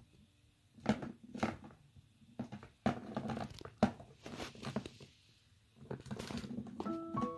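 Kitten scratching and pawing at the corrugated cardboard pad of a plastic track scratcher toy: irregular scratching and light knocks with short pauses. Music comes in near the end.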